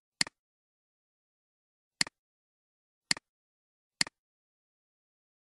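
Computer mouse clicking four times at uneven intervals. Each is a sharp click followed closely by a softer one, and there is dead silence between the clicks.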